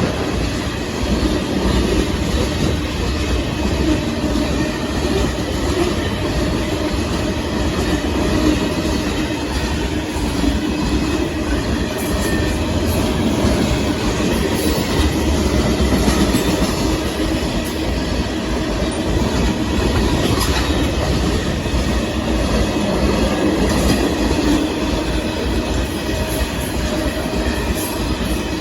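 Sand and rock freight train rolling past, its wheels clacking over the rails with a steady rumble that does not let up.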